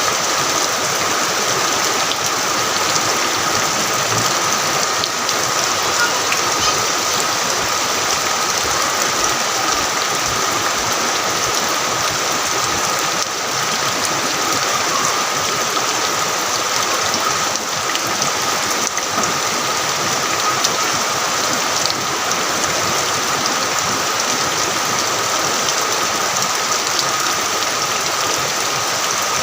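Heavy rain pouring steadily, with an even, unbroken hiss.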